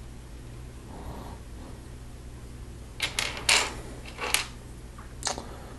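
Small hard-plastic clicks and knocks of Lego pieces being handled and pressed onto a minifigure. A quick cluster of sharp clicks comes a little past halfway, and one more near the end.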